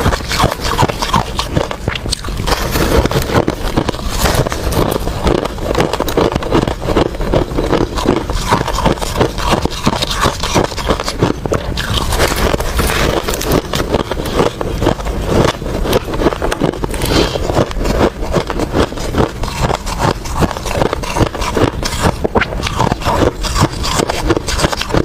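Ice being crunched and chewed, a dense continuous run of cracking, crackling crunches.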